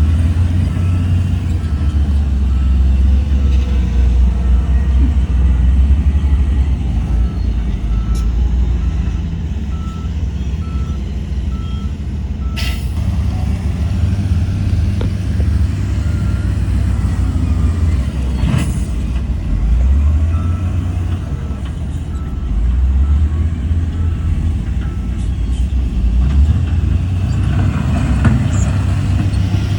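Heavy diesel earthmoving machinery running, its engine note rising and falling under load, with a reversing alarm beeping steadily for much of the time. Two short sharp sounds cut in, one about halfway through and another a few seconds later.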